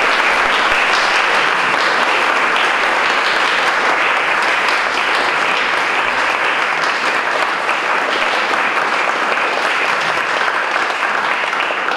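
An audience applauding: dense, steady clapping from many hands that eases slightly near the end.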